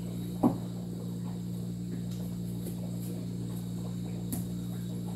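Puppy chewing and mouthing torn newspaper, with small crinkles and a sharp tap about half a second in, over a steady low hum.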